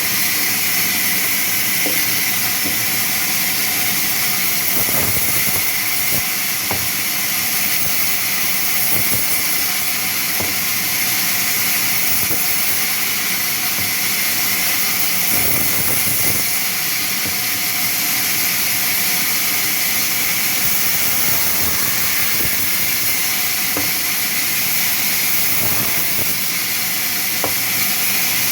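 Sawmill saw running with a steady, loud high hiss, with a few faint knocks.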